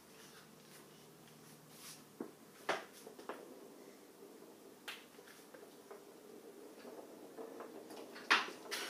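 Scattered light taps and knocks from a toddler and a house cat moving about on a hardwood floor. The loudest knocks come near the end.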